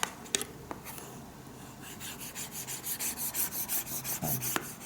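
Stylus scribbling quickly back and forth on a children's drawing tablet: a rapid run of high scratchy strokes, about six a second, after a couple of light taps.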